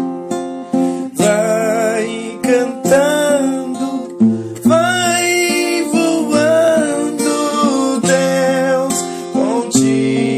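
Background music: acoustic guitar accompaniment under a sustained melody line with vibrato.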